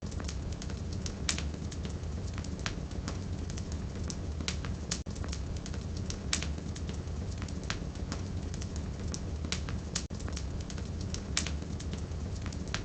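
Firewood burning in a fireplace: many small crackles and a few louder pops over a steady low rumble of the fire.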